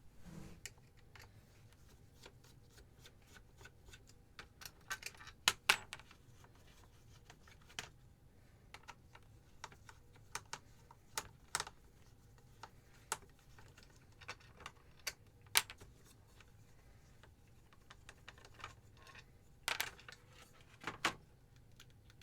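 Irregular small clicks and taps of tools and parts being handled while a Corsair H55 liquid CPU cooler is taken apart, with a few louder knocks about five and a half seconds in and twice near the end.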